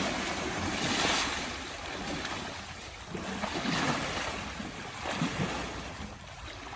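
Shallow stream water splashing and sloshing around a bathing elephant's legs as it stands and shifts in the water, coming in uneven swells.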